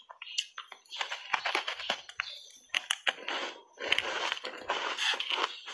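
Close-miked crunching of a mouthful of refrozen block ice coated in matcha powder, bitten and chewed in uneven bursts of sharp crackles and snaps with brief pauses.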